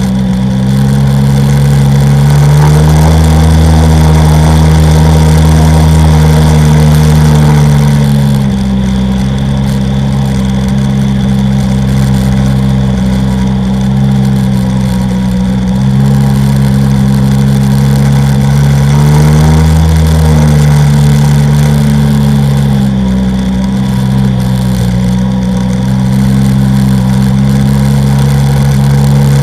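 Sea-Doo XP personal watercraft's two-stroke engine running at speed. It revs up about two and a half seconds in, holds higher for several seconds, eases back, then rises and falls again briefly about two-thirds of the way through.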